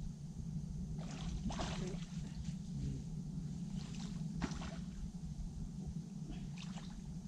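Hooked tench splashing and sloshing at the surface close to the bank as it is played in, in three short bouts, over a steady low hum.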